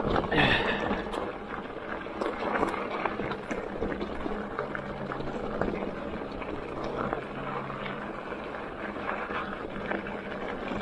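Hardtail Magnum Peak T7 electric mountain bike rolling down a rocky dirt trail: tyres crunching over dirt and loose stones, with many small knocks and rattles as the bike bounces over rocks and bumps.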